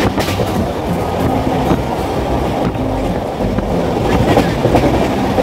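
Jan Shatabdi Express passenger train running along the track: a steady, loud rumble with rattling.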